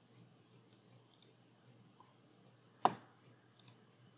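Computer mouse clicking: one click, then quick double clicks twice, with one louder short knock about three seconds in.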